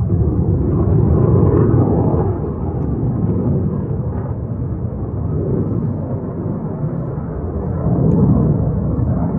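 Loud, deep rumble of an RAAF F-35A fighter's single turbofan engine in flight. It swells up at the start, eases off a little, and swells again about eight seconds in.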